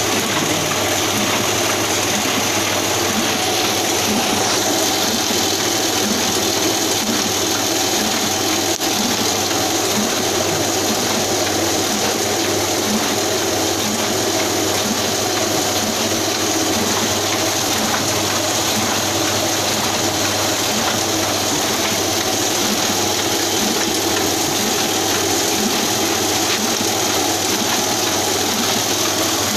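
Ryobi offset printing press running steadily, its repeating mechanical clatter carrying on without a break, over a steady high hiss.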